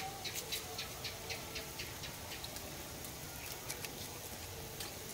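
Pot of soup at a rolling boil on a charcoal stove: a steady bubbling hiss with irregular sharp pops and ticks, several a second, thickest about the first second and a half.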